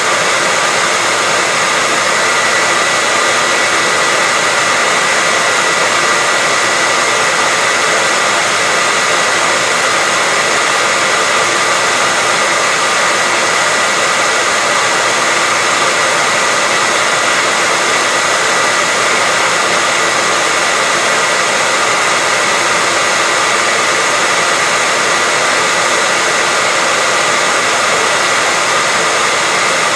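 Hair dryer running steadily: an even rush of blown air with a steady whine from the motor.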